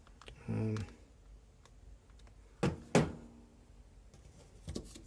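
Two dull thunks about a third of a second apart, from hands handling the disassembled pocket knife and its parts on a tabletop, with a couple of faint clicks near the end.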